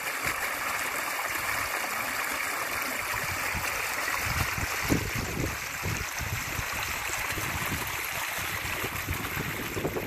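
Small stream of mountain runoff water running over stones in a narrow ditch: a steady rushing trickle, with a few low rumbles near the middle.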